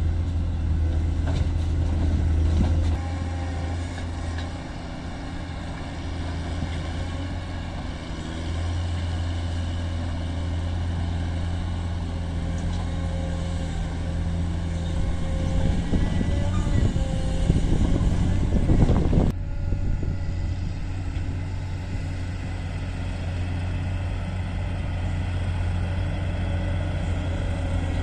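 Caterpillar 140M motor grader's diesel engine running steadily as it works a rocky road. About two-thirds of the way through comes a few seconds of scraping and knocking as the blade works through rock.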